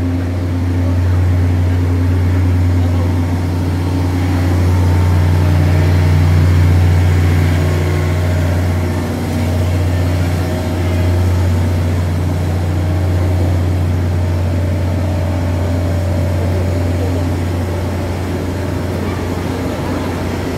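Idling diesel engines of a DR3000 diesel multiple unit standing at the platform: a steady low hum with a few steady overtones above it.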